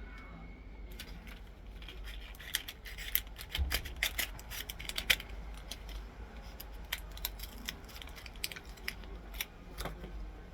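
Toy cap gun being handled and worked: a run of irregular small clicks and scrapes, with no loud cap bang.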